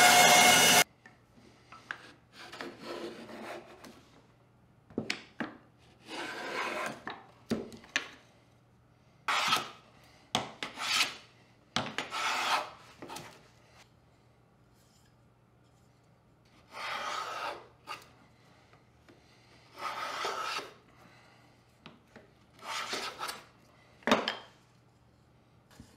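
Small bandsaw running through wood, cutting off abruptly within the first second. Then a small hand plane scraping along thin wooden strips in about a dozen separate strokes, with pauses between them.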